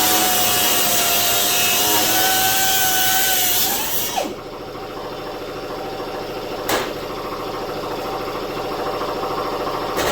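Power tool cutting sheet metal with a steady whine, which stops about four seconds in. A quieter steady machine hum carries on after it, with two short clicks.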